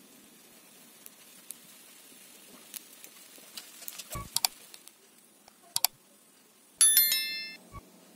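Thin crepe batter cooking in a nonstick frying pan: a faint, steady sizzle with scattered small ticks and pops. About seven seconds in, a loud sharp clink rings out and fades within a second.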